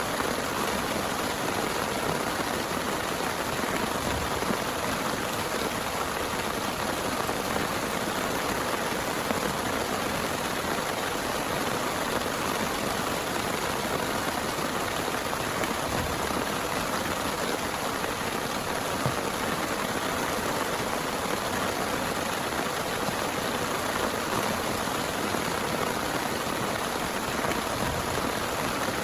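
Steady heavy rain: a dense, even hiss of falling rain that holds unchanged throughout.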